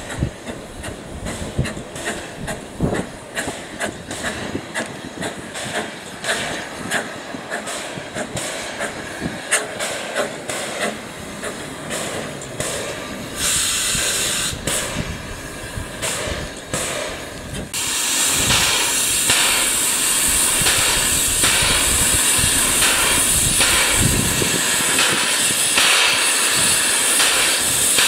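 SMC1 'Coffee Pot' steam motor coach rolling slowly, with irregular clicks and knocks from its wheels and running gear. A short hiss comes in midway, and about two-thirds in a loud, steady hiss of escaping steam starts and drowns the rest.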